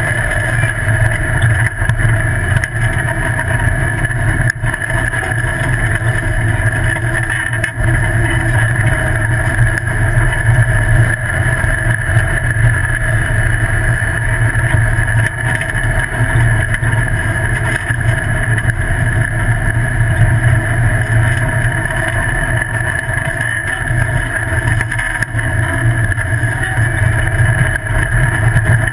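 Off-road buggy driving at a steady pace along a dirt track: a constant engine drone over a heavy low rumble of wind and rough ground on the chassis-mounted camera.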